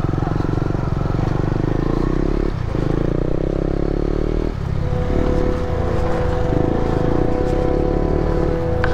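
Motorcycle engine running while riding, the engine note dipping briefly twice.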